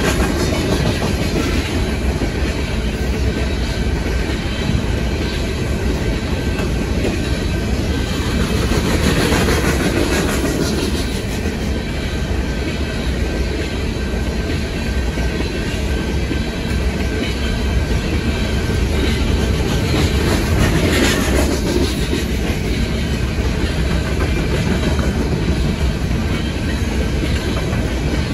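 Empty steel gondola cars of a freight train rolling past steadily, their wheels clattering over the rail joints with a continuous rumble.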